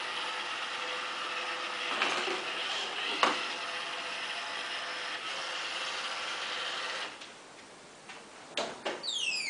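Roomba robot vacuum's motors running with a steady whir, with a couple of knocks about 2 and 3 seconds in. The whir stops about 7 seconds in, followed by two clicks and a falling chirp at the very end.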